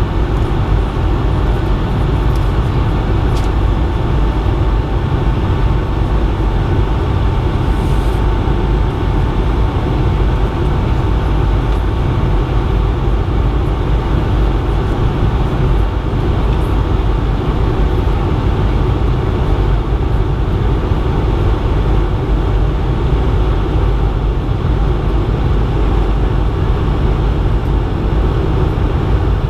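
Steady cabin noise inside a Bombardier CS100 (Airbus A220-100) jet airliner in flight: a constant low rumble and rush of airflow and engine noise, with a faint steady hum over it.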